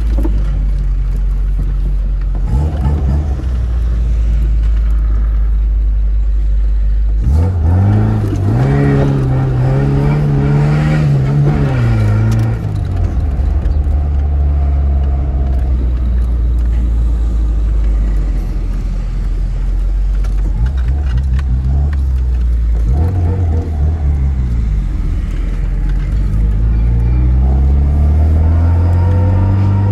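Tofaş Şahin car engine and exhaust revving under hard driving. The revs climb sharply about seven seconds in, hold for several seconds and fall away, then climb again in a long rise near the end.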